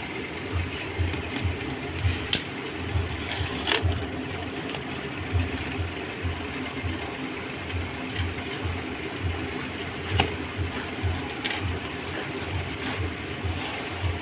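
Cardboard box being pried and torn open by hand, a few sharp scrapes and rips standing out over a steady background hum with a low thud repeating about twice a second.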